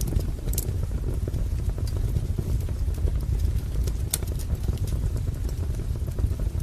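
Wood fire burning in a fireplace: a steady low rumble of flames with scattered sharp crackles and pops, the sharpest about four seconds in.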